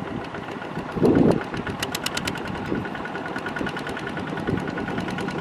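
Single-cylinder diesel engine of a two-wheel walking tractor running steadily while the machine is stuck in mud, with a louder surge about a second in and a rapid, even ticking for a couple of seconds in the middle.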